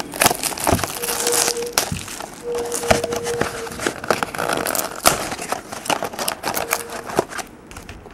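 Plastic wrapping crinkling and tearing, with cardboard rustling, as a sealed trading-card box is unwrapped and opened by hand: a dense run of irregular crackles and sharp rustles that thins out near the end.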